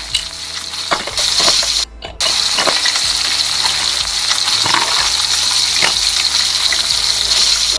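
Steady frying sizzle from the toy kitchen's pan as the fish cooks, breaking off briefly about two seconds in. Light clicks and clinks of plastic utensils and cookware sound over it.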